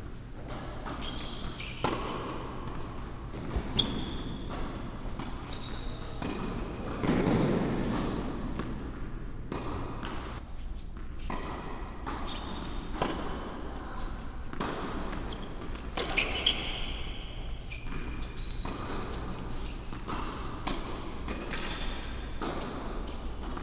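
A tennis ball being bounced and struck with racquets during play on an indoor hard court, a string of sharp hits with short shoe squeaks between them, echoing in a large hall.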